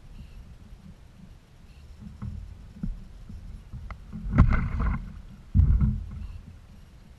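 Water splashing and knocking against a kayak's hull: a few light knocks, then two short, louder bouts of splashing a little past the middle.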